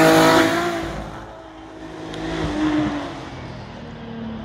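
A Nissan Skyline race car passes close at full throttle, its engine note dropping a little in pitch as it goes by and fading within about a second. Another car's engine is heard more faintly a couple of seconds later.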